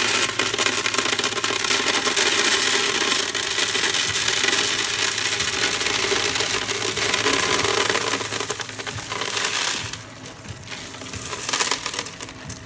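Gumballs being poured into a gumball vending machine's globe: a continuous dense rattle of hard candy balls tumbling over one another, which stops about ten seconds in, followed by a few quieter clatters.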